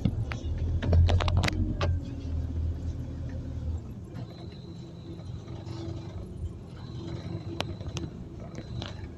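City bus heard from on board while driving: a strong low engine rumble that eases off about four seconds in, then a quieter steady drone with a faint whine. Sharp clicks and rattles from the bus interior sound about a second in and again near the end.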